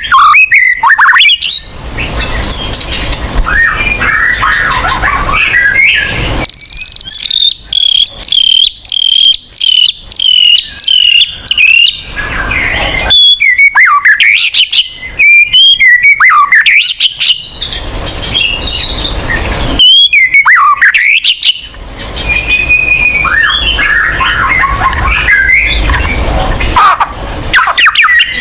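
White-rumped shama (murai batu) singing loudly in a long, varied song of gliding whistles and chattering phrases, with a stretch of fast repeated high notes in the middle.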